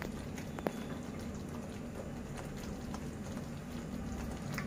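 Thick curry gravy simmering in a kadai, a soft steady bubbling, with one light click just under a second in.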